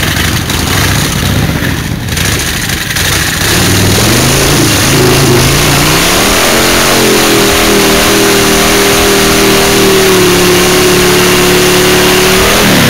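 S&S stroker Harley-Davidson V-twin on a chopper rumbling low, then revving up after a few seconds and held at high, steady revs while the rear tyre spins in a burnout. The revs drop sharply right at the end.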